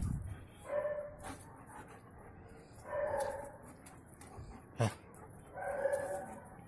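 German shepherd dogs play-fighting, one giving three short pitched vocal calls about two seconds apart. A single sharp click comes just before the last call.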